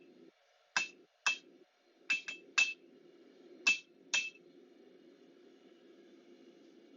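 Hand hammer striking hot steel bar stock on an anvil to forge a round bar square: seven sharp, ringing blows at an uneven pace over the first four seconds or so, then only a faint steady rush.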